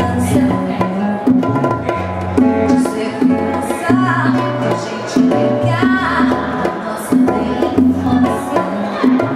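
Live band music: a classical guitar and hand percussion playing a steady rhythm, with a woman singing.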